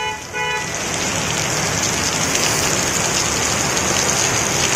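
Heavy rain pouring down on a waterlogged street, a steady hiss that swells a little after the first half second. Right at the start a vehicle horn gives two short beeps.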